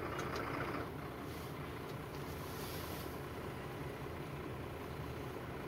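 Heavy truck's diesel engine idling steadily, heard from inside its cab while it stands in a jam, with a hiss that stops about a second in.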